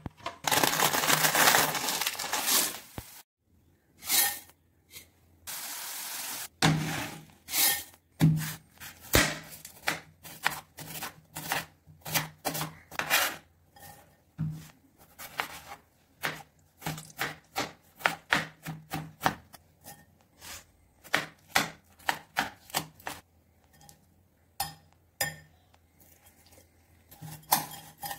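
Hand preparation of a dry Maggi noodle snack: a dense crackling for the first few seconds, then a long run of short, crisp strokes about two a second as the raw noodles and chopped vegetables are handled, ending with tossing in a glass bowl.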